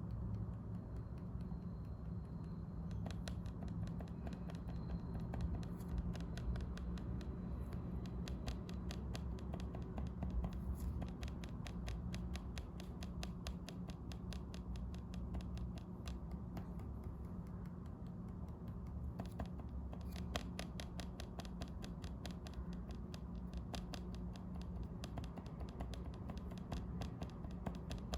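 A Lenovo IdeaPad Slim 3 15AMN8 laptop's touchpad being tapped with a finger over and over. Each tap gives a sharp click, in fast runs of several taps a second from a few seconds in. The noise on single and double taps is the touchpad's fault, which the owner finds very annoying.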